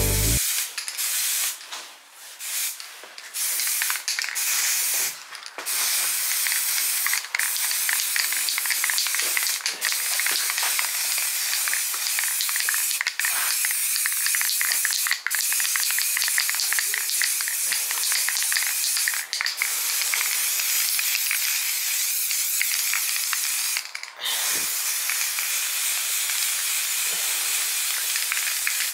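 Aerosol primer spray can hissing in long bursts, with brief breaks where the nozzle is let go, longer pauses about two seconds in and near the end.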